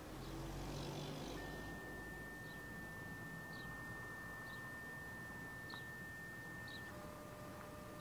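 Faint quiet outdoor background before a siren sounds: a thin steady high tone that drops to a lower pair of tones near the end, with short high chirps about once a second.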